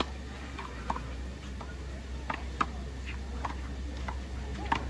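Sharp slaps and knocks at irregular intervals, about eight in all, from a rubber handball being struck by hand and hitting the wall and court during a rally, over a low steady hum.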